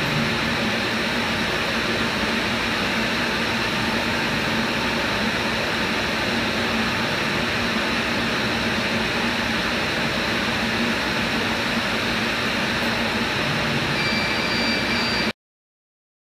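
CO2 laser cutting machine running as it cuts thermo bimetal sheet: a steady hiss of rushing assist air over a low machine hum. A thin high tone comes in near the end, just before the sound cuts off suddenly.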